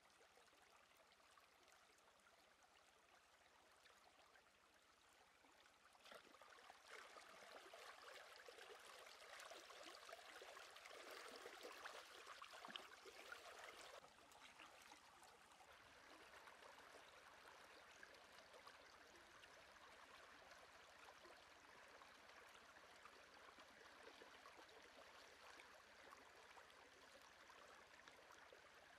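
Faint running stream water over rocks. From about six seconds in, louder splashing and sloshing as a stingray is rinsed by hand in the water, which stops abruptly about halfway through, leaving the steady stream.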